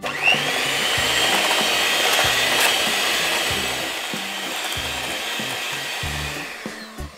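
Electric hand mixer starting up with a short rising whine, its beaters running steadily through butter, icing sugar and egg in a glass bowl, then winding down and stopping near the end.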